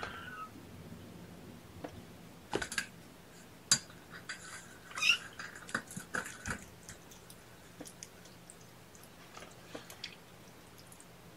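Young kittens, about three weeks old, mewing: one short mew at the start and more around the middle, mixed with sharp clicks and soft rustling.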